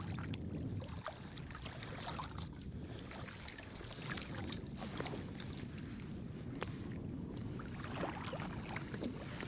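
Shallow saltwater sloshing and lapping around a wading angler's legs, with wind buffeting the microphone and scattered small splashes as a hooked spotted seatrout is brought in.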